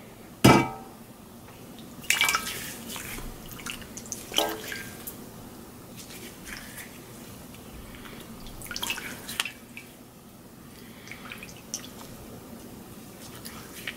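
Water splashing from cupped hands onto the face and dripping back into a metal bowl, rinsing off shaving lather, in several separate bursts with quieter drips between.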